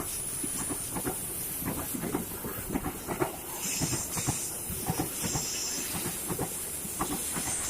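Train rolling past, wheels clattering irregularly over the rail joints, with a steady hiss.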